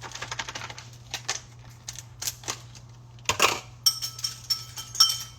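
Kitchen clatter of utensils and dishes: a run of light clicks and knocks, then, about four seconds in, a metallic clink that rings on for over a second, with more clinks near the end. A steady low hum runs underneath.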